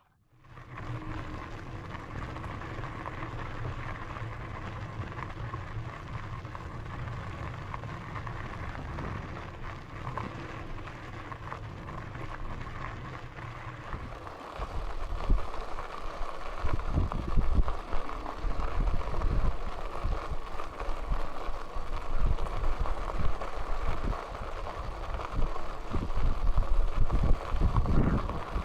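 Electric mountain bike riding along a dirt trail, with steady tyre and drivetrain rolling noise. About halfway through, gusts of wind start buffeting the microphone in irregular low rumbles that become the loudest sound.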